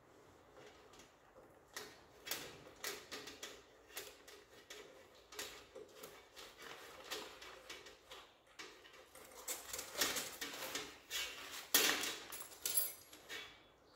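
Irregular light clicks and knocks of small hard parts and tools being handled, busier and louder in the second half.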